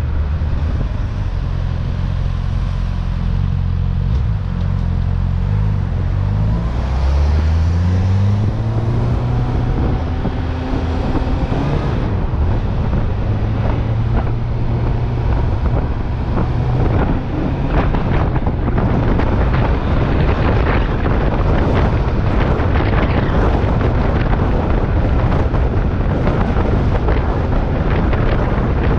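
Motor vehicle on the move: its engine note climbs steadily for several seconds as it accelerates, then gives way to heavy road and wind noise, with wind buffeting the microphone.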